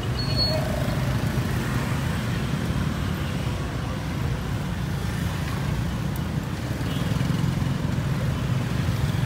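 Steady low rumble of passing street traffic on a busy road.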